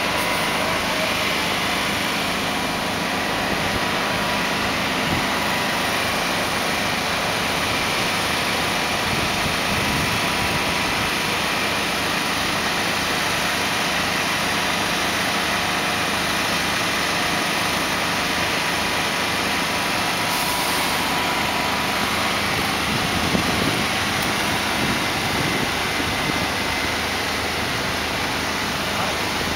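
Heavy-haulage truck's diesel engine running steadily at low speed while it tows a long load on a multi-axle trailer.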